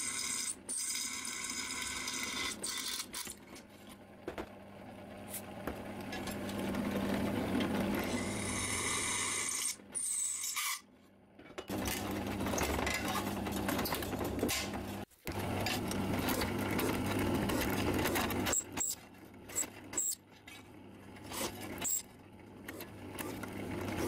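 Drill press running, its twist bit cutting into steel plate from an old saw blade: a steady motor hum under the scrape of the bit in the metal. The sound drops out briefly twice.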